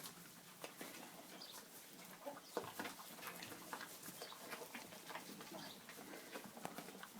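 Faint, scattered short bird calls and clucks, like farmyard chickens, with a few soft clicks.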